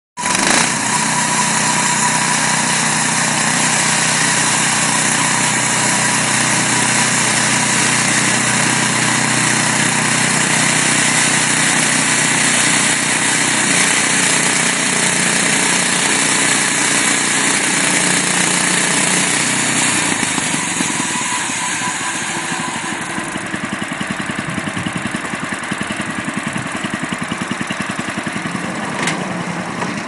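Woodland Mills HM126 portable bandsaw mill running, its gas engine droning steadily while the band blade saws through a walnut log with a dense hiss. From about 20 seconds in the hiss eases off and the engine runs on with a rougher pulse. There is a single sharp click near the end.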